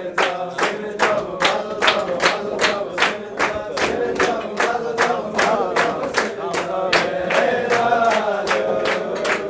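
A group of men singing a melody together, with steady rhythmic hand-clapping in time at a little over two claps a second.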